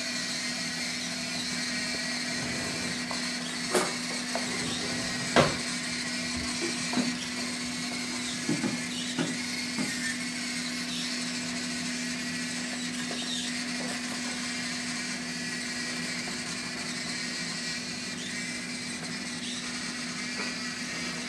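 Small electric gear motors of a homemade robot cart whirring steadily as they drive its wheels. A few short knocks come between about four and ten seconds in.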